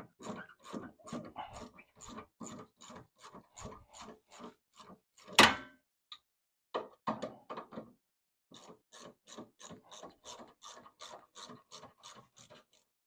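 3/8-inch ratchet with a 16 mm socket clicking steadily, about three to four clicks a second, as it spins the nut on a rear sway bar end link. One loud knock about five seconds in, then a short break before the clicking starts again.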